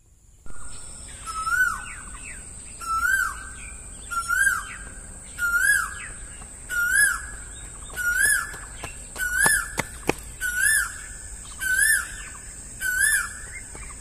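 A bird calling over and over, about ten times, one call every second and a bit: each call a clear whistled note that swoops up and then drops. A steady high-pitched buzz runs underneath.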